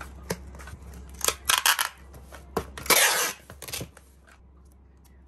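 Packing tape being pulled off the roll onto a cardboard box: a few short rips a little over a second in, a longer, louder pull around three seconds, and a few more short rips just before four seconds, with hands handling the box.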